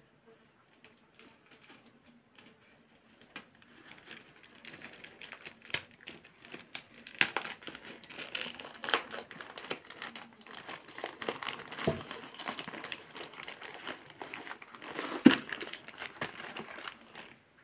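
Plastic courier mailer bag crinkling and crackling as it is handled and cut open with a small blade. The sound starts faintly and grows louder from about four seconds in, with several sharp clicks and snaps.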